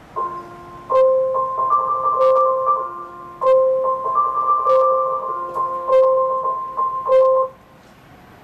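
Short electronic chime melody of clear keyboard-like notes from a station platform speaker, announcing the approaching train. It plays for about seven seconds and stops abruptly.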